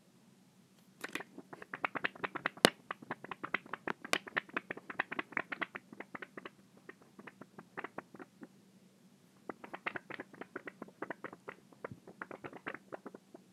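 Rapid, irregular clicking and ticking in two runs: the first starts about a second in and lasts several seconds, a shorter second run follows after a brief pause.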